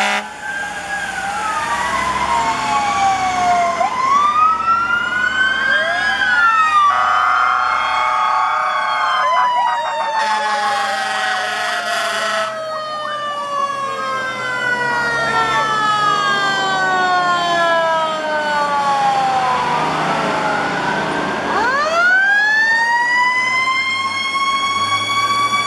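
Several fire truck sirens sounding at once, including mechanical sirens slowly winding down in long falling wails. Horn blasts cut in twice, about a third of the way in and again shortly after. Near the end a mechanical siren spins up from low to a high, steady wail.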